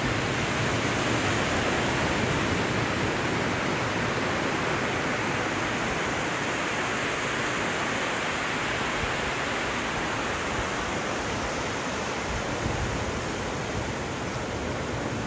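Steady rushing noise of wind blowing across the microphone, mixed with surf washing onto a sandy beach.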